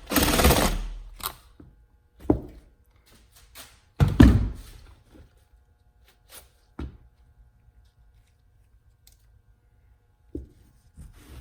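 Metal oil filter housing and parts being handled on a bench: scattered thunks and clanks, loudest as a clatter about four seconds in. A burst of noise at the start dies away over about a second.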